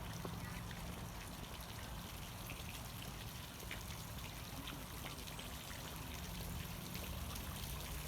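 Water trickling and splashing steadily, with small irregular ticks over a low steady rumble.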